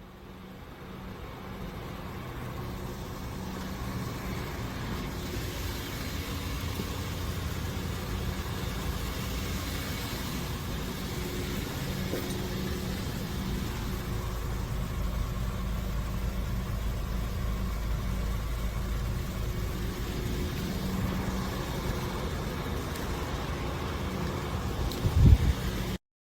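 Car running: a steady engine hum and rumble, with a single low thump near the end.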